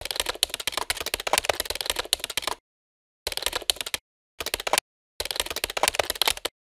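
Typing sound effect: rapid keystroke clicks in four bursts with dead silent gaps between them, matching on-screen text being typed out.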